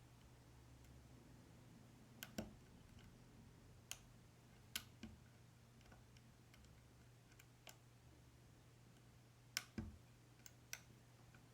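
Scattered, sharp little clicks at irregular intervals as a hook pick and tension wrench work the pin stack of a Yale 500 lock, over a faint low hum.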